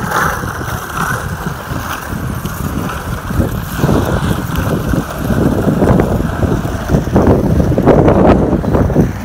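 Bicycle rolling over a concrete sidewalk: a continuous rumble of tyre and frame rattle mixed with wind buffeting the microphone, and several louder rattling bumps in the second half.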